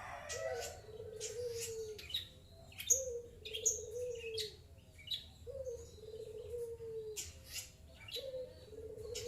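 Long-tailed shrike (cendet) calling in short, sharp chirps, over a low hooting note of about a second that repeats every one and a half to two seconds.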